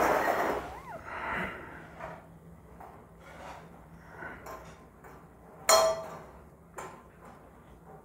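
Wire bird cage door being handled: metal rattles, scrapes and light clinks, with one sharp metallic clank that rings briefly a little before six seconds in and a smaller click soon after.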